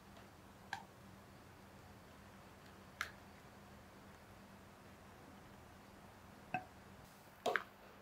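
Four short clinks of a utensil knocking against a glass mixing bowl while cream is added to cheesecake batter, the last a quick double. A faint steady hum runs underneath.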